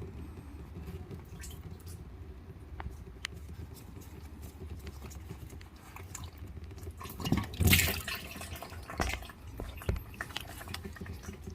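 Engine oil trickling and dripping from the RAV4's loosened oil filter housing into a drain pan. A louder scrape and a few knocks come about seven to ten seconds in, from tools or the housing being handled.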